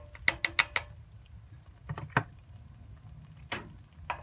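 Metal potato masher clinking against a cast iron skillet while mashing refried beans: a quick run of about five sharp metallic clicks in the first second, then a few single clinks spaced out, over a low steady hum.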